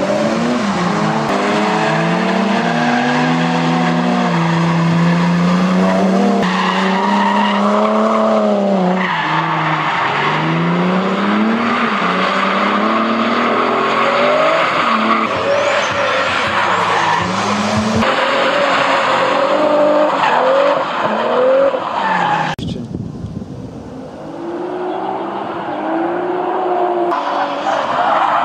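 Nissan S13 hatchback drift cars sliding sideways, their engines revving up and down in quick swings under throttle while the tyres squeal. The sound comes from several short runs in a row, with a brief quieter spell about three-quarters of the way through.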